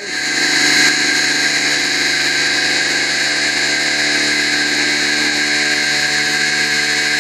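Home-built pulse battery charger running with a steady, high-pitched electric buzz and whine, charging a 12 V car battery from two 12 V batteries in series. It swells up over the first second, then holds steady.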